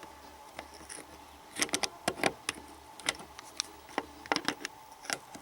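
Metal hand tool clicking and knocking against a half-round anti-theft bolt head on a motorcycle engine's clutch cover as it is worked at to unscrew it, in short clusters of sharp clicks.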